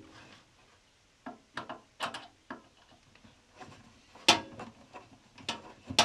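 Irregular clicks and taps of a hand screwdriver with a Robertson bit undoing furnace mounting screws, with one sharper knock about four seconds in.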